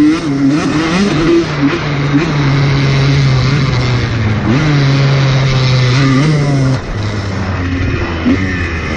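Honda motocross bike engine running under throttle on a dirt track, its pitch climbing and dropping with throttle and gear changes. About seven seconds in it falls to a lower, slightly quieter note as the throttle is eased.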